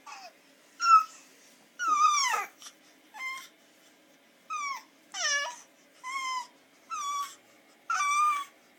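Baby making a run of high-pitched squeals, about ten short calls, many sliding down in pitch.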